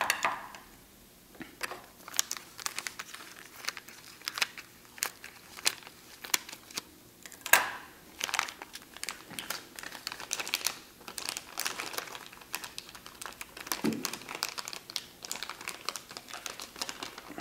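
Plastic packaging crinkling and crackling as it is opened by hand to unwrap a new laptop hard drive. The crackles come irregularly all through, with a louder one about seven and a half seconds in.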